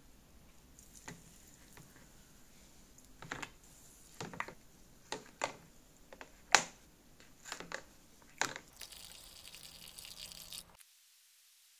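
Small pressed-steel toy Jeep parts set down one by one into a plastic tub, a series of sharp clacks with the loudest about six and a half seconds in. Then liquid is poured into the tub for about two seconds before the sound cuts off.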